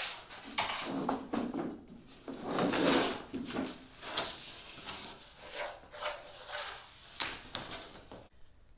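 Long PVC chine strip being lifted and dragged across plywood sheets: irregular scraping and rubbing strokes, with a sharp knock at the start.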